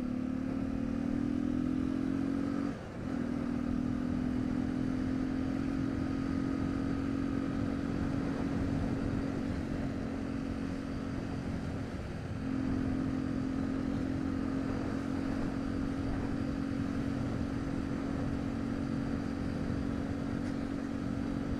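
Honda XR 250 Tornado's single-cylinder four-stroke engine running under way, heard from on the bike. The engine note climbs over the first couple of seconds, then holds steady, dipping briefly twice, about three and twelve seconds in.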